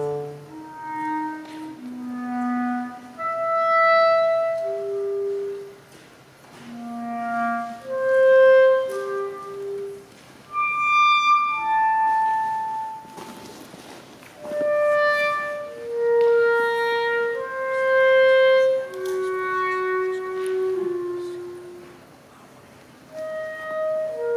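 Solo clarinet played live, with slow phrases of single held notes that leap between the low and high registers and short pauses between phrases. About halfway through there is a brief burst of noise.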